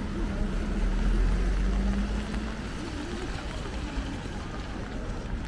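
A motor vehicle passing close by on a city street: a low engine rumble with a steady hum, loudest in the first two seconds and then easing off, over constant traffic noise.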